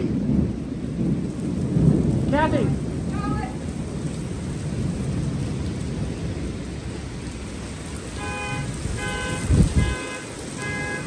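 Heavy thunderstorm rain pouring on pavement, with thunder rumbling low underneath. From about eight seconds in, an alarm beeps in a steady on-off pattern, with a loud low thud just after it starts.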